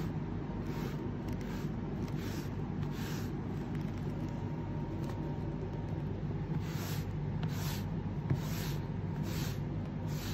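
A metal-edged pet-hair rake scraping across a pile rug in repeated short strokes, pulling up dog hair. The strokes are fewer in the middle and come about one or two a second near the end, over a steady low hum.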